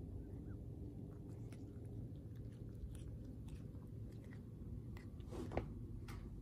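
A domestic cat chewing a dragonfly, with short irregular crunches and a louder burst of crunching about five seconds in.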